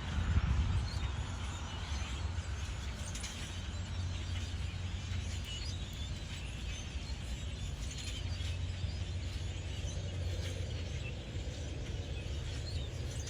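A flock of birds chirping and calling, many short chirps scattered throughout, over a steady low rumble.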